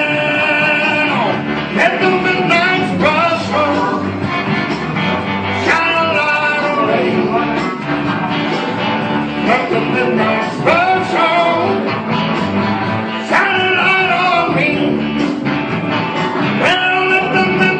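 Live rock-and-roll/blues music: an instrumental stretch between sung verses, with a bending melodic lead line returning every few seconds over a steady accompaniment.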